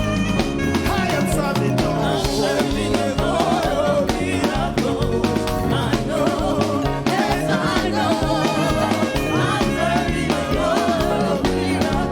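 Live gospel praise-and-worship music: a band with drums and bass plays an upbeat song while singers sing.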